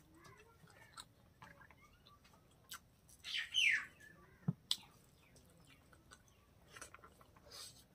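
Close-up eating sounds: wet mouth clicks and lip smacks while chewing rice eaten by hand, with a louder squeaky smack about three and a half seconds in.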